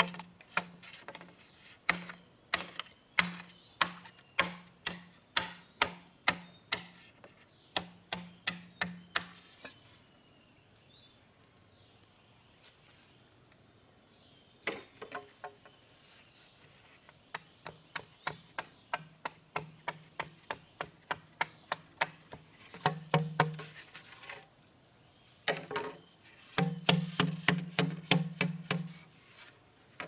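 Bamboo being chopped or struck by hand, a hollow knock about twice a second, in three runs with pauses between. Insects buzz steadily at a high pitch.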